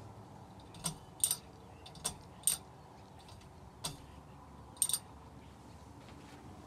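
Hunter Stratford II ceiling fan running on high with a faint steady hum, broken by about six sharp, irregularly spaced clicks.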